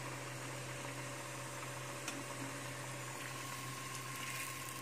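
Samosas deep-frying in hot ghee on a low flame: a steady, gentle sizzle of bubbling fat over a steady low hum.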